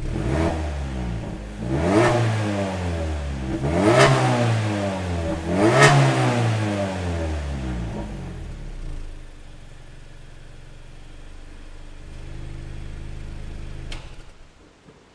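Mazda3's engine revved four times through an aftermarket exhaust with an electronic valve, each blip rising in pitch and falling back, about two seconds apart. It then settles to a steady idle and shuts off near the end.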